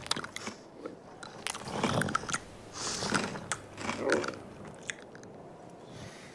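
Cartoon sound effects of a camel chewing and crunching on a paintbrush held in its mouth: crackly, clicking chews in three louder bouts about two, three and four seconds in.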